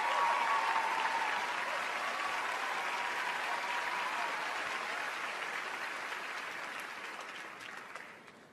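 Large audience applauding, dying away over the last couple of seconds.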